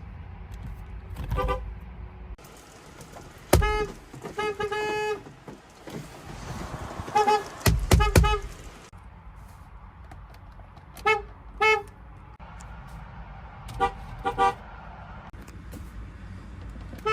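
Ford Escape car horns sounded in short beeps, clip after clip. Most come in pairs, and one is a quicker run of four or five beeps, each beep a brief blare against a low background hum that changes from clip to clip.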